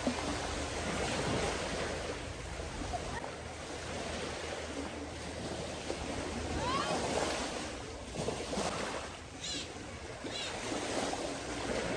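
Ocean surf washing on the shore, with wind on the microphone. A low rumble drops away about three seconds in.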